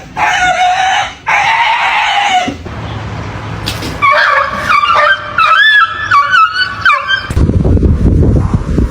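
Pet animal cries: two long, harsh cries in the first two and a half seconds, then a high, wavering cry that bends up and down in pitch from about four to seven seconds. Near the end a low rumbling noise takes over.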